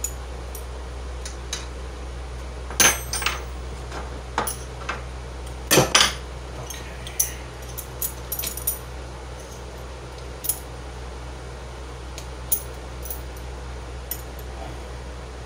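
Metal hand tools clinking and rattling as they are rummaged through to find the right-size wrench or socket, with scattered light clinks and a few louder clanks about three and six seconds in. A steady low hum sits underneath.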